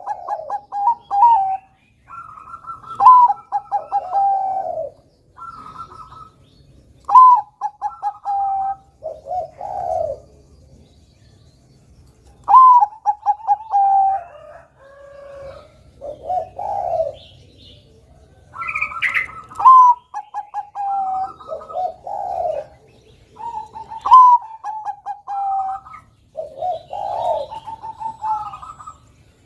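A Bangkok-type zebra dove (perkutut) cooing its song over and over. Each phrase is a high opening note followed by a rapid run of short notes falling in pitch, coming every two to four seconds with short pauses between.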